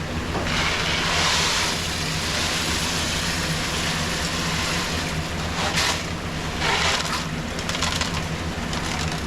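Aquarium salt poured into pond water, a hissing pour for about a second and a half near the start and two shorter pours later, over a steady low hum of pond equipment.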